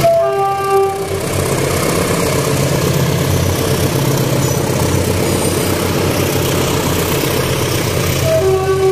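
Train running close by with a loud, steady engine rumble, sounding its horn briefly at the start and again near the end.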